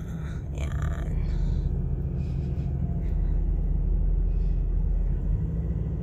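Steady low road and engine rumble heard from inside a moving car's cabin, a little louder through the middle.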